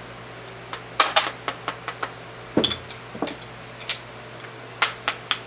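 About a dozen sharp metallic clinks and taps from a bullet mold being worked while casting lead bullets, a couple of them with a short falling ring, over a steady low hum.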